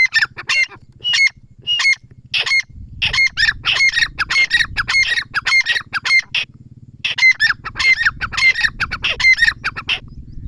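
Teetar (francolin) calling: a long run of sharp, repeated harsh notes, several a second, with a short break a little after halfway, stopping just before the end.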